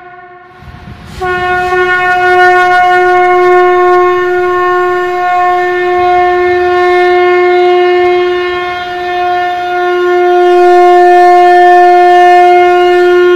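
Conch shell (shankh) blown loudly. A previous blast fades away at the start, and about a second in a new long blast begins, held at one steady pitch.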